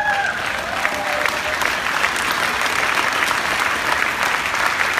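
A large indoor audience applauding, a dense steady clatter of many hands clapping, with a few voices calling out during the first second or so.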